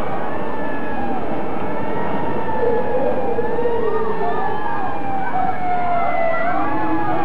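Siren wailing, its pitch gliding slowly up and down, over a steady background din.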